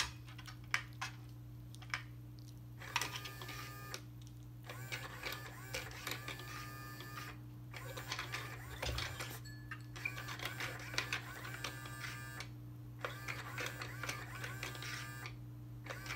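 Motorized rotating cat teaser toy (Nekojara Sitter) whirring as its small geared motor runs in spells of a few seconds with short pauses between, over a steady low hum. A few light clicks in the first couple of seconds.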